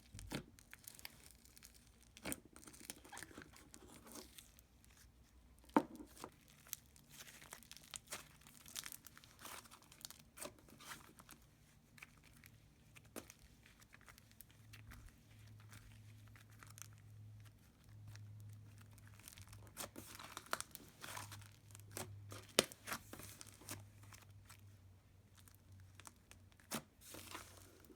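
Butter slime being stretched and pressed by hand, giving faint, scattered crackles and soft pops: the sizzle of an extra-sizzly butter slime.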